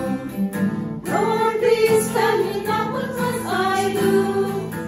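A small group of women singing a slow Christian song in unison, accompanied by acoustic guitar; a new sung line begins about a second in.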